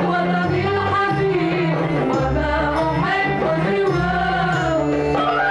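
Arabic orchestral song music: a melodic passage between sung lines, with no lead vocal.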